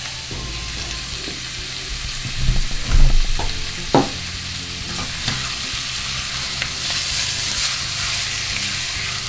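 Raw pork belly frying in hot oil with garlic and onion in a stainless steel pot, stirred with a silicone spatula: a steady sizzle that grows louder from about halfway through. A few loud knocks about three seconds in as the pork goes in and the spatula hits the pot.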